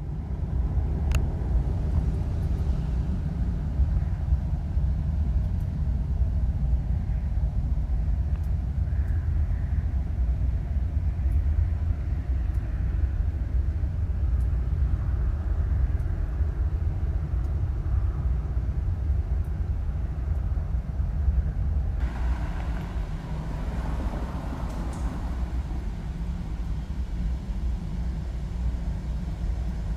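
Deep, steady low rumble that changes slightly in character about 22 seconds in.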